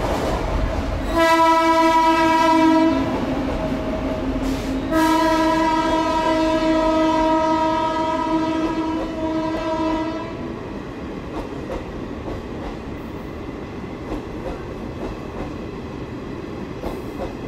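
Electric locomotive's horn sounding twice, a short blast and then a long one of about five seconds, over the running noise of passenger coaches rolling past. After the horn stops, the steady clatter of the coaches' wheels on the rails carries on.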